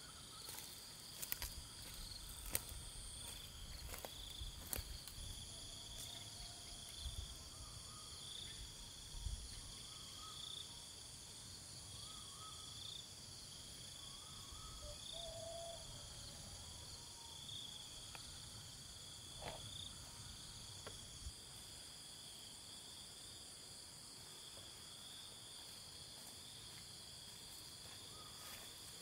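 Steady, high-pitched chirring of insects. Sharp snaps and crackles stand out in the first few seconds, from footsteps on dry, burnt stalks, and a few short chirps come now and then.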